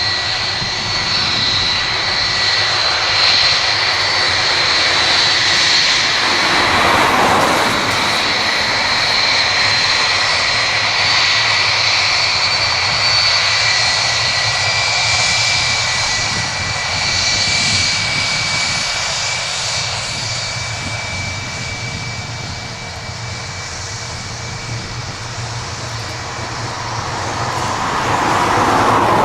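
Jet engines of a Boeing C-17A running with a steady roar and a high, steady whine, swelling briefly about seven seconds in and again at the end.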